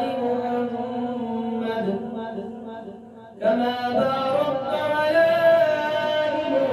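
Background vocal chanting with long held, melodic notes. It dips down about two seconds in and comes back suddenly about three and a half seconds in.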